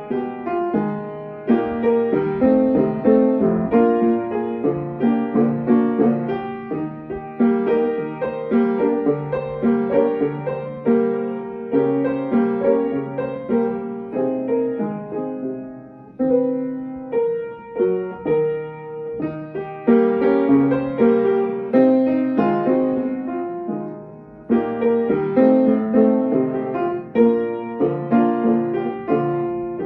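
Piano played with both hands: a continuous stream of notes and chords, each dying away, with two brief lulls between phrases, about halfway and again past two-thirds of the way through.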